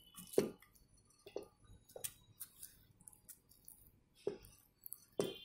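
Metal spoon clicking and scraping against a stainless steel bowl as raw beef, sliced cabbage and ground spices are stirred together, with a few separate taps spread through.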